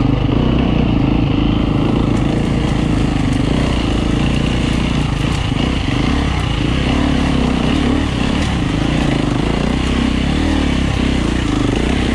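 Enduro dirt bike's engine running hard close up, its revs rising and falling with the throttle.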